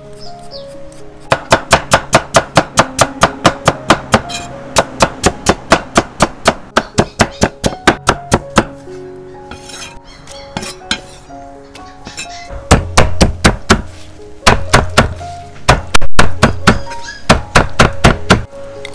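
Rapid, even strikes of a kitchen tool on food, about three to four a second, in two runs with a pause of a few seconds between them; the second run is louder and heavier. Background music plays throughout.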